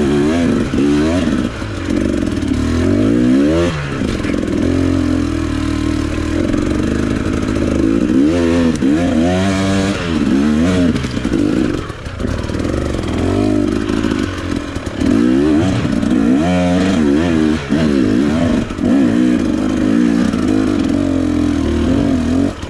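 KTM dirt bike engine under hard throttle on a steep trail climb, its pitch climbing and dropping again and again as the rider works the throttle, with some rattling from the bike.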